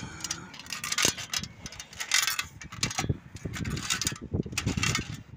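Footsteps with rustling handling noise from a hand-held phone: a run of uneven scuffs and knocks, about one a second.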